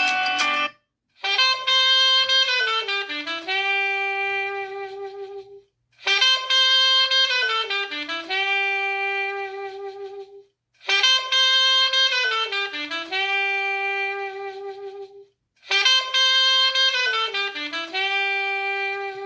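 Huawei P30 Lite ringtone playing a short jazzy, saxophone-like melody that loops four times with short pauses between the repeats.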